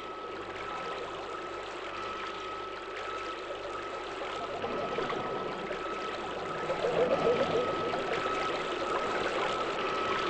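Underwater ambience: water rushing and bubbling, with a steady high tone held throughout. The bubbling grows louder about two-thirds of the way in.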